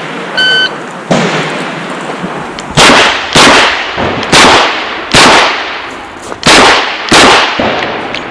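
A shot timer beeps briefly about half a second in. A Chiappa Rhino revolver then fires six shots, starting about two seconds after the beep and spaced roughly half a second to a second apart.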